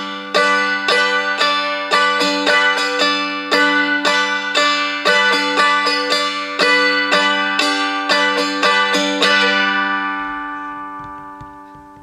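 Seagull M4 spruce-top strumstick dulcimer, tuned G-D-G, strummed in waltz time: a tap on the thick G string then two down strums, repeating in threes over the ringing drone strings. The last strum, about nine seconds in, is left to ring and fades away.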